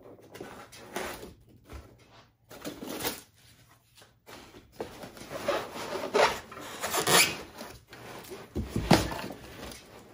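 3D printer base being worked out of its dense foam packing insert: irregular rubbing and scraping of foam against the metal frame and cardboard. It grows louder in the second half, with a dull thump near the end.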